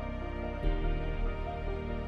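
Background music of long held notes, with a deeper bass note coming in just after half a second in.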